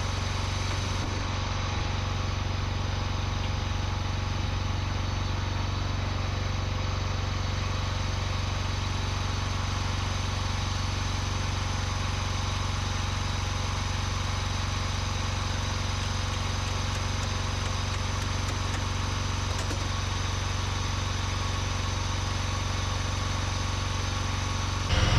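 Engine of a 1971 John Deere 140 riding lawn mower running steadily at an even speed.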